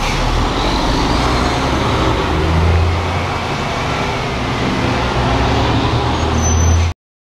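Heavy trucks passing along the street: a steady low engine rumble with tyre and road noise, swelling a little partway through, that cuts off abruptly near the end.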